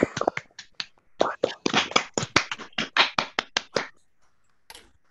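A few people clapping over a video call, the claps fading out about four seconds in.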